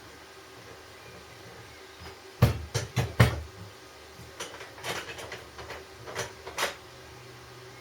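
A series of sharp knocks and clatters, loudest in a quick cluster about two and a half seconds in, then lighter scattered clicks, over a steady faint hum.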